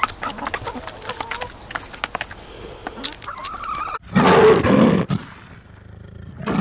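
Backyard hens pecking food from a tray, many quick taps, with a few short clucks. About four seconds in a sudden loud, dense sound begins, breaks off after about a second, and starts again near the end.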